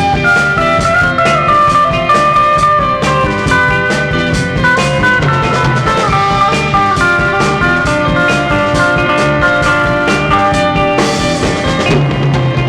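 Instrumental break in a baroque pop song: a drum kit keeps a steady beat under a melodic lead line of held notes stepping up and down.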